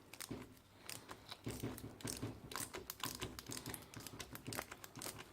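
Rapid, irregular small metallic clicks and creaks from a socket wrench on a long extension as a seized spark plug with dry, rough threads is slowly worked out of a Kawasaki Sherpa 250's cylinder head.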